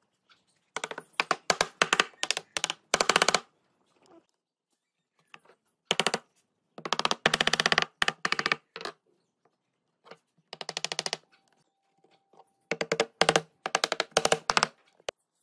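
A power tool in short bursts of rapid mechanical clatter, the clicks too close together to count, grouped in four clusters of several bursts each.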